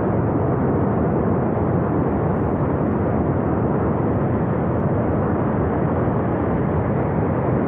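Flash flood from a glacier burst: a torrent of water and debris rushing down a river valley, making a loud, steady, rumbling noise.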